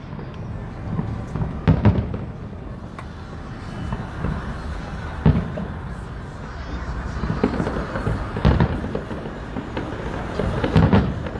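Aerial fireworks shells bursting overhead, several deep booms a second or more apart over a steady background rumble.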